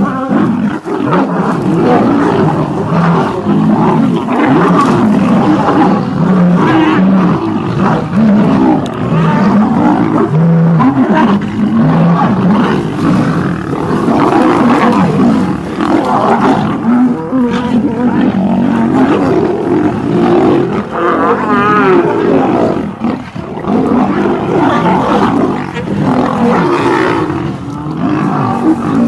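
A fight between several lions: continuous, loud roaring from the brawling cats, with no let-up.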